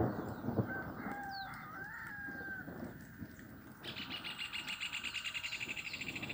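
Birds calling in the open air: a drawn-out, wavering call about a second in, and scattered short falling chirps. From about four seconds in comes a rapid, high, buzzing trill that runs for nearly three seconds, all over a steady low noise.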